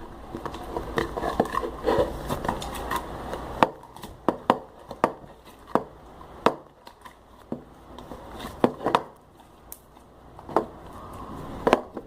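Homemade glue slime being worked by hand and stirred, making irregular sticky pops and clicks: a dense crackle for the first few seconds, then separate clicks about once or twice a second.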